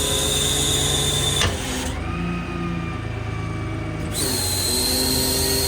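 Cummins 6.7 diesel running steadily, with a high hydraulic whine from the truck's equipment that stops about one and a half seconds in and comes back about four seconds in.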